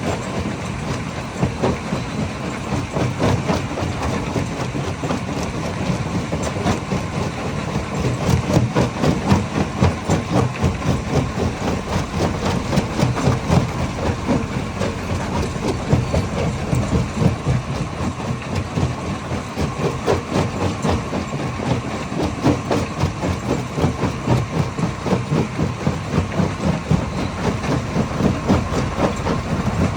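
Hammer crusher running on rock: a steady, dense clatter of stone knocking and breaking over a constant machine drone.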